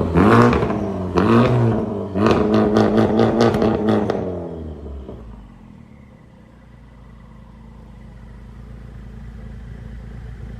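Honda Civic Type R's turbocharged 2.0-litre four-cylinder being revved in a series of sharp blips, pitch rising and falling with each one. About five seconds in it drops back to a steady low idle.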